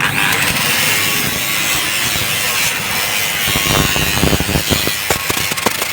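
Electric arc welding on a pipe: a steady frying hiss from the arc that starts abruptly, with sharp crackles spattering through it from about halfway on.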